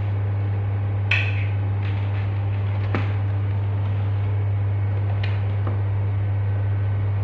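A steady low hum, with a few light clicks and knocks.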